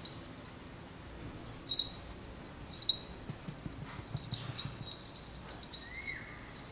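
A hand rubbing and patting a cat's fur: soft rustling with scattered sharp clicks, busiest in the middle, and one short high squeak about six seconds in.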